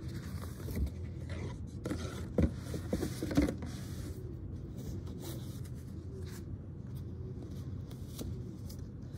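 Cardboard box being opened: the lid scrapes and knocks several times in the first three and a half seconds, then quieter rubbing as hands handle the foam insert inside.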